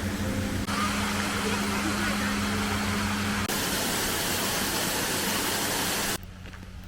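Steady rushing noise with a low hum, changing abruptly about three-quarters of a second in and again about halfway through, then dropping much quieter near the end.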